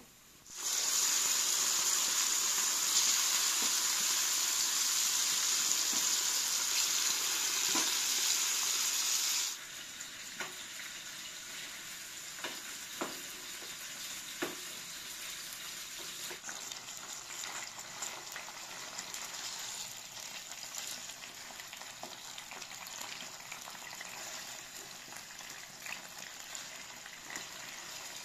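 Chicken pieces frying in a pot: a loud, steady sizzle that drops off sharply after about nine seconds to a quieter sizzle, with occasional knocks of a wooden spoon stirring against the pot.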